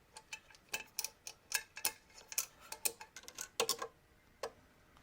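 A screw being driven by hand with a screwdriver: a run of irregular sharp clicks, a few a second, stopping about four and a half seconds in.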